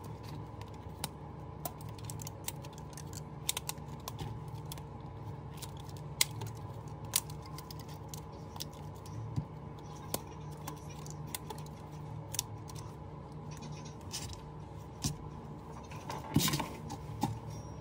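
Rubber bands being stretched and snapped against a smartphone's glass body, with fingers handling the phone: scattered sharp clicks and light snaps over a steady low hum, and a louder cluster of knocks near the end as the phone is set down.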